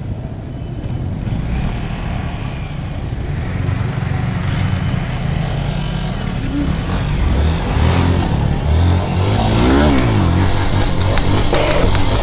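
Motorcycle engine running under way, revved up and down several times from about eight seconds in, with the rumble growing louder toward the end.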